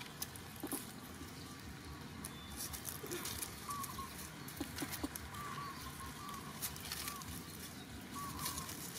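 Dry leaves rustling and crackling in short, scattered bursts as macaques move and a baby macaque walks through the leaf litter, with faint short chirps repeating from a few seconds in.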